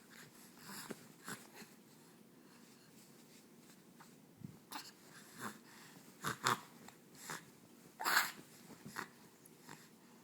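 A baby making short, noisy breaths and little vocal sounds, scattered through, the loudest about eight seconds in.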